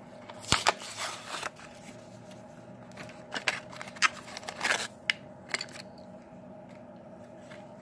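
Handling of a die-cast toy car still sealed in its card-and-plastic blister package: scattered clicks, taps and crinkles of the packaging, the sharpest near the start and a few seconds in, over a faint steady hum.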